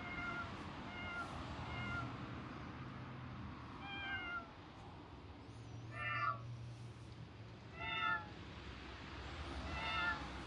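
Recorded cat meows played from a cat-sound piano app on a phone, a series of separate short meows. Three nearly identical ones come about a second apart, then four more about every two seconds.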